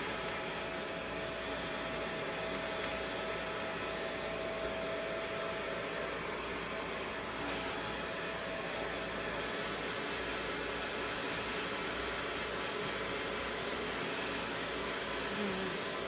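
Handheld hair dryer running steadily, blowing on a long-haired cat's coat.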